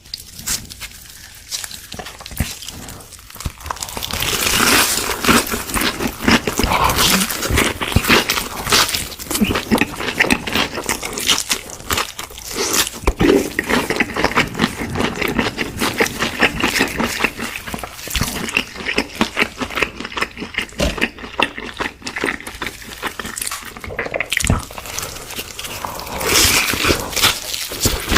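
Crispy fried chicken being bitten and chewed: dense crackling crunches, louder from about four seconds in.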